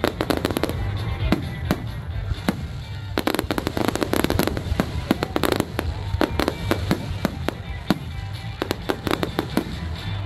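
Fireworks going off in a rapid, irregular barrage of sharp bangs and crackles, in clusters of quick cracks, with music playing underneath.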